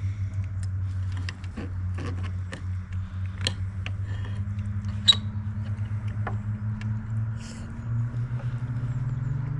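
A steady low engine drone that rises slowly in pitch over the second half, with scattered small clicks and taps of eating from bowls, one sharper tick about five seconds in.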